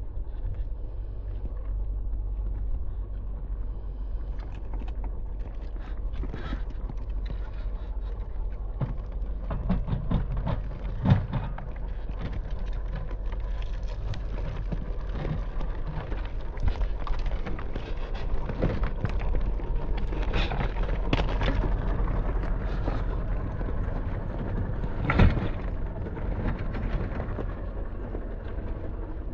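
Scale RC crawler truck (Traxxas TRX-4) crawling slowly over dirt and gravel: steady crunching and rustling, with scattered clicks and two sharper knocks, about 11 and 25 seconds in, under a low wind rumble.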